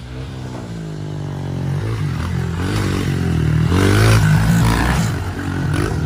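Small GasGas pit bike engine revving up and down as the bike rides toward the microphone, growing steadily louder until it passes close by about four seconds in.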